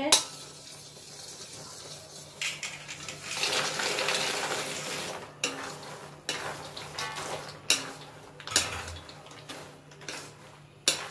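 A steel spoon stirring thick jaggery syrup in a steel kadhai, clinking against the pan. About three seconds in there is a clatter lasting a couple of seconds as fried maida pieces are tipped in from a steel bowl. Then come scattered clinks and scrapes as the pieces are stirred to coat them in the syrup.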